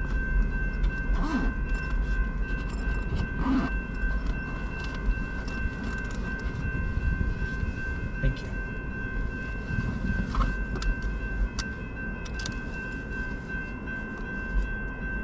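Railroad crossing warning bell ringing continuously as the signals flash, with a steady low rumble underneath.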